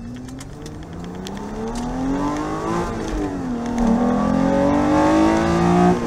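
Toyota 2GR-FE 3.5-litre V6 with Stage 1 camshafts, headers and a free-flowing, unrestricted exhaust, under wide-open-throttle acceleration, heard from inside the MR2's cabin. The revs climb, drop at an upshift about three seconds in, then climb again, growing louder.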